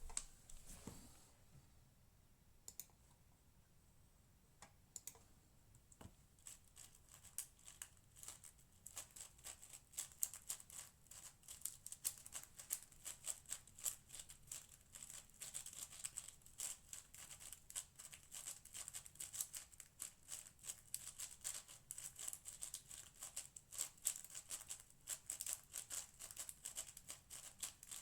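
Cosmic Shadow M 6x6 speedcube being turned, a few scattered clicks at first, then from about seven seconds in a fast, dense clatter of plastic layer turns.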